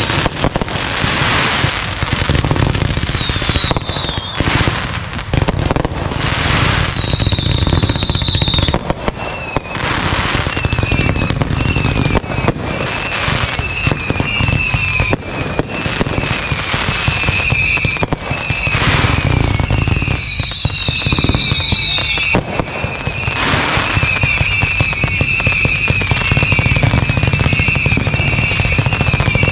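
Ground-launched consumer fireworks firing in rapid, continuous succession: a dense run of shots and bursts. Long whistles falling in pitch cut through three times, and a high warbling tone runs through the second half.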